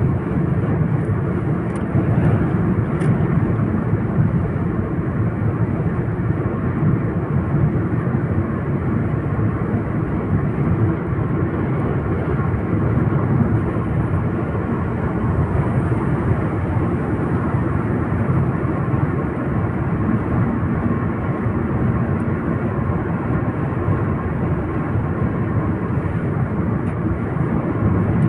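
Steady rumbling road and engine noise of a moving car, heard from inside.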